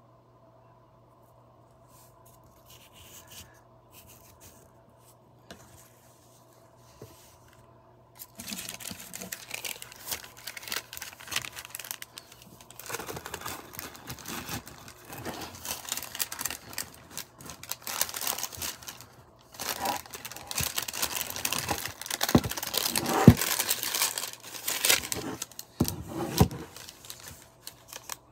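Paper lining of a wooden cigar box rustling and crinkling as hands work a bundle of cigars into the box. It starts about eight seconds in and gets louder in the second half, with a few sharp crackles.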